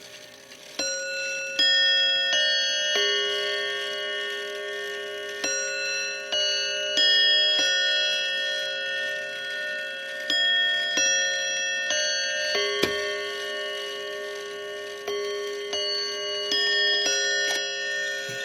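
Seth Thomas Sonora chime clock's tuned bells playing the hour chime. Notes are struck in four-note phrases a few seconds apart, and each note rings on under the next.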